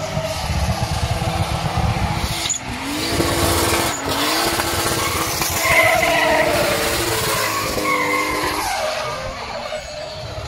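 Drift car's engine held at high revs, its pitch dipping and climbing again a couple of times, with tyres squealing through the middle of the slide; the sound fades near the end.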